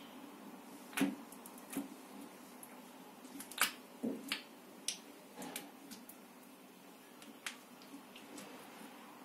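Metal-tined uncapping fork scraping and lifting wax cappings off a honeycomb frame. It makes sharp, irregular clicks and crackles, bunched around the middle.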